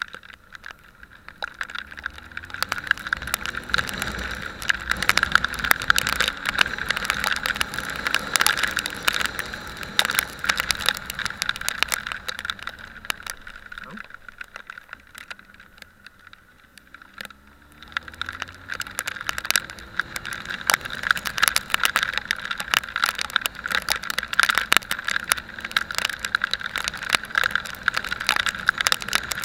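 Motorcycle on the move with steady wind and road noise; the engine note climbs twice as the bike accelerates, with a quieter lull in between.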